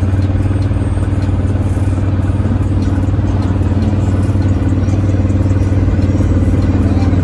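Lifted Chevrolet Silverado pickup's engine running steadily as the truck rolls slowly along, a loud even low drone that holds one pitch, with faint light clicks over it.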